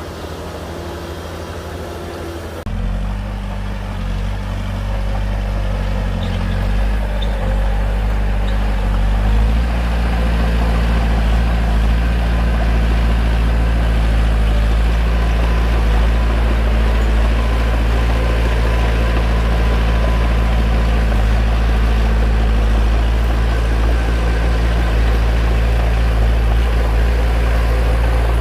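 Bulldozer's diesel engine running steadily with a deep, low drone. It changes abruptly about three seconds in, then grows louder until about ten seconds in and holds steady.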